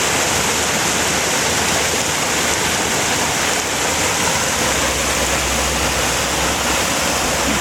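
Floodwater rushing steadily along a drainage ditch that is full to the brim.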